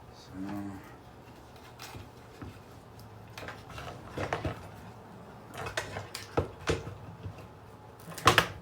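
Small hard parts of a dismantled alarm clock clicking and clattering as they are handled and set down, in irregular clusters of knocks, the loudest a sharp knock near the end.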